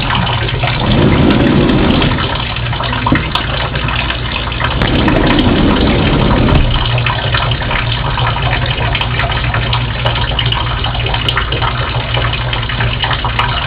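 Water leaking steadily from the balcony deck above and splashing into a nearly full bowl, with two louder spells about a second in and around five seconds. The leak is a sign of water collecting under the deck flooring, probably from rotten wood.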